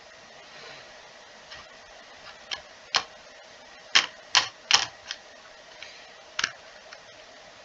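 3.5-inch floppy disk drive reading a disk: irregular clicks and ticks of the read head stepping across tracks, a cluster of loud clicks about four to five seconds in, over a faint steady hum.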